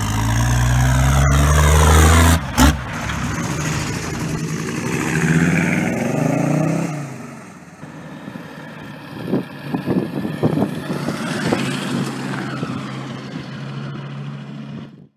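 Diesel car engines accelerating hard in several short clips, each a rising pitch as the revs climb, the loudest in the first couple of seconds. A cluster of sharp knocks comes about two-thirds of the way through.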